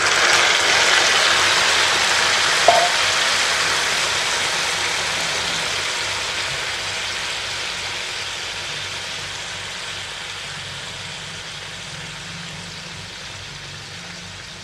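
Pressure-cooked mutton pieces and their leftover cooking liquid hitting hot mustard oil and ghee with fried onions in a nonstick pan. The pan sizzles hard at first, then gradually dies down. One short knock comes about three seconds in.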